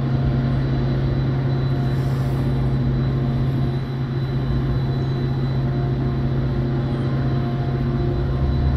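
Diesel locomotive of a commuter train running, a loud steady engine drone with a deep hum.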